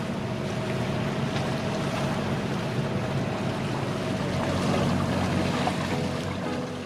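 Sailboat's inboard engine running steadily under way: a constant low drone, with wind and water noise over it.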